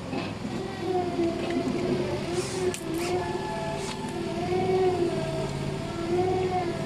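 A motor or engine running steadily, its pitch wavering slowly up and down. A few sharp clicks sound about two and a half to four seconds in.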